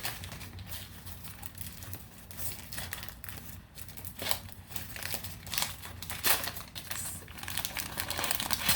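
Plant packaging being unwrapped by hand: irregular crinkling and crumpling, one rustle after another.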